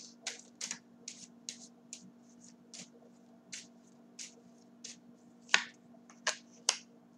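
A run of sharp, irregular clicks and snaps, about two a second, the loudest about five and a half seconds in.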